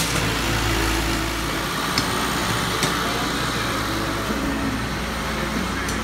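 Concrete pump truck's engine running steadily as a low rumble that eases a little about a second and a half in, with a few light knocks.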